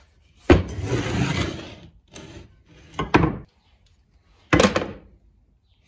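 Old axe and wooden handles being set down and moved on a plywood workbench: a sharp wooden knock about half a second in, followed by about a second of scraping. Smaller knocks come near two and three seconds, and another hard knock comes about four and a half seconds in.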